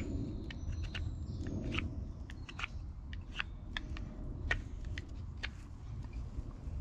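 Knife whittling a green plum-wood spoon blank: irregular short slicing clicks and scrapes as thin shavings are cut away.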